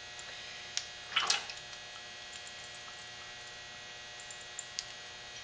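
Faint steady electrical mains hum, with a sharp click just under a second in and a brief soft splash-like noise just after, as preservative is poured from a small glass into a stainless steel pot of lotion; two faint ticks near the end.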